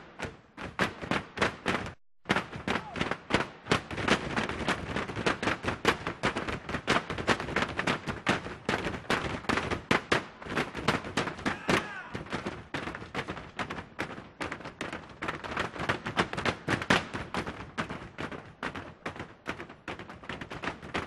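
Long wooden poles pounded on a stage floor in a fast, tight rhythm by a percussion troupe, a stick-percussion routine. There is a brief break about two seconds in.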